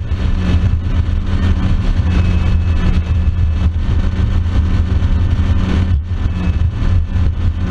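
Mercury Verado outboard motor running steadily at speed, heard up close, with rushing water and wind over a steady low engine hum.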